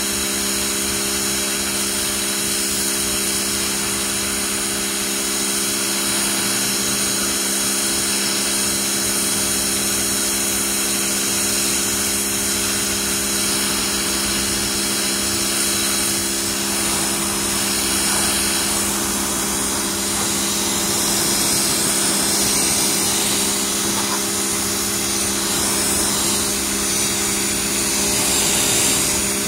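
Electric pressure washer running steadily: a motor-and-pump hum under the hiss of the water jet spraying onto concrete.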